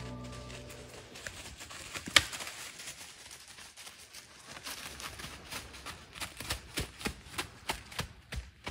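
White-tailed deer stepping through dry fallen leaves: irregular light crunches that come faster in the second half, with one sharper click about two seconds in.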